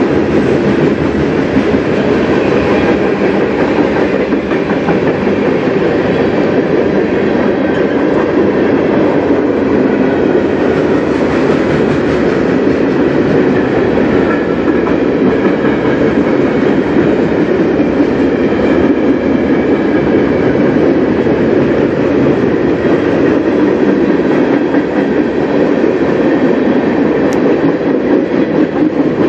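Freight cars of a mixed manifest train (covered hoppers, boxcars, tank cars, a gondola) rolling past close by at steady speed: a loud, steady rumble of steel wheels on rail that does not let up.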